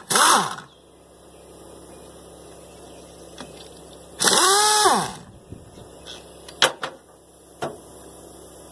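Power tool run in two short bursts, one right at the start and one about four seconds in, its motor speeding up and then slowing down, while it loosens the main bearing cap bolts of a scrap engine. A few sharp metal clicks follow near the end.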